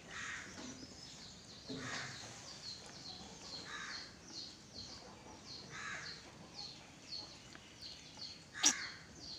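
Short, harsh animal calls about every two seconds, over a steady run of quick, high, falling chirps, with one sharp click near the end.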